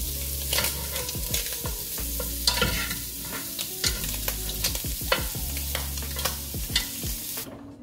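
Food sizzling and crackling in a hot frying pan, with sharp clicks among the steady hiss; the sound cuts off suddenly near the end.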